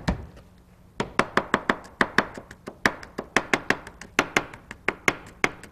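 Kitchen knife rough-chopping garlic cloves on a plastic cutting board: quick, even knocks of the blade on the board, about five a second, starting about a second in.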